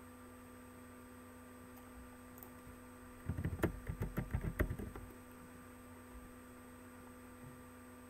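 Quick run of about a dozen keystrokes on a computer keyboard, typing a web address, over a steady electrical hum.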